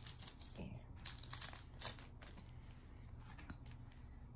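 Foil Pokémon booster pack wrapper crinkling and tearing as it is pulled open by hand: faint short rustles and rips, most of them in the first two seconds.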